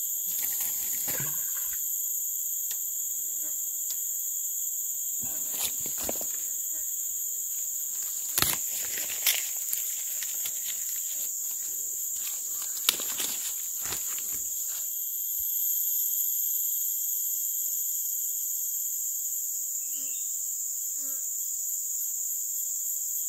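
Steady chorus of insects, a shrill high-pitched hum that holds through, with a few scattered sharp clicks and knocks.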